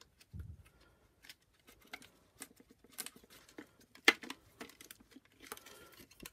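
Plastic parts of a Shark vacuum power nozzle and screwdrivers being handled on a wooden bench: scattered clicks, taps and light rattles, with a dull thud near the start and one sharp click about four seconds in.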